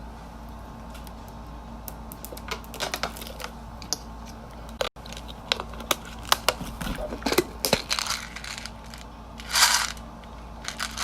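Handling noises: scattered light clicks and taps with some crinkling, over a steady low hum, and a short rustle near the end.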